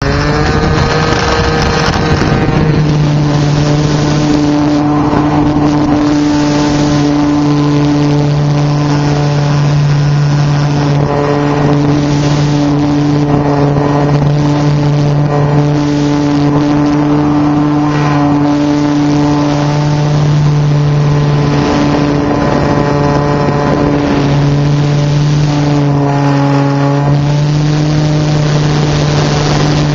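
Onboard sound of a radio-controlled airplane's motor and propeller running steadily and loudly. The pitch rises about two to three seconds in as the throttle opens for takeoff, then holds with small dips and rises.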